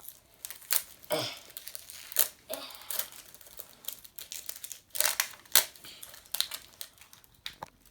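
Plastic toy packaging crinkling and tearing as it is worked open by hand, in irregular sharp crackles and rustles.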